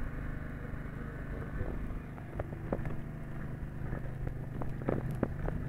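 Steady low hum of an engine running aboard a small fishing boat, with scattered light knocks and clatter, a few more toward the end.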